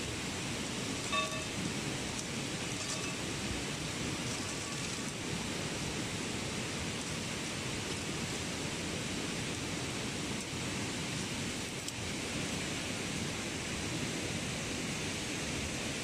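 Steady rushing of river water, an even unbroken hiss, with a short faint ringing note about a second in.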